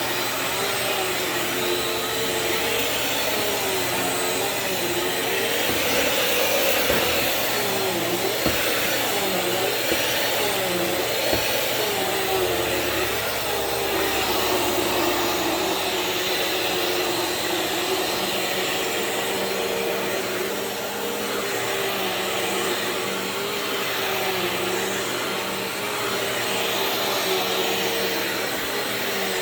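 Bissell CleanView Swivel Pet bagless upright vacuum running on carpet. Its motor hum dips in pitch and recovers every second or two through the first half, then holds steadier.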